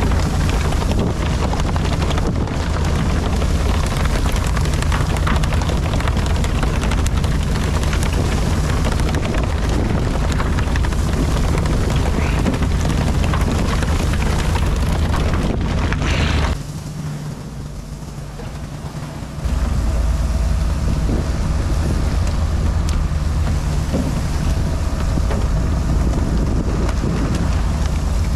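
Fishing boat's engine running steadily under a constant rush of wind and spraying water at the stern. The low engine rumble drops away for about three seconds past the middle, then comes back.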